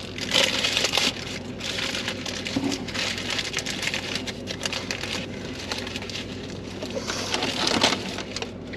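Close chewing and crunching of fast food, a run of irregular crunchy bursts.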